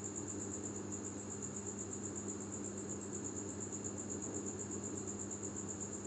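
Faint steady background: a continuous high-pitched trill pulsing fast and evenly, over a low steady hum.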